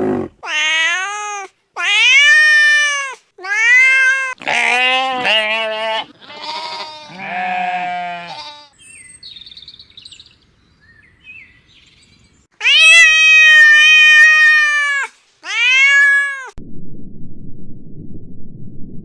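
Goats bleating: a quick run of wavering calls about a second each, some overlapping, then after a short pause one long bleat and a short one. A low steady rumble takes over near the end.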